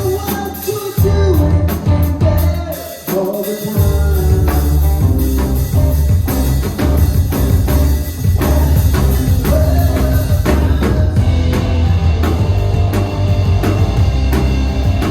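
Live rock band playing amplified, with drum kit, heavy bass and a sung vocal line; the bass drops out briefly early on and comes back in about four seconds in.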